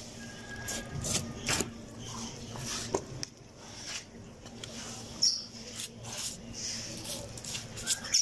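A knife slicing and a cow hide being pulled away from the carcass: irregular short scrapes, rips and clicks.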